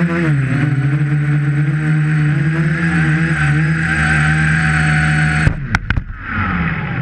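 Tricopter's brushless motors spinning 11-inch propellers, a steady loud buzz whose pitch dips briefly near the start. About five and a half seconds in the buzz cuts off abruptly with a few sharp clicks, followed by a falling whine as the motors spin down.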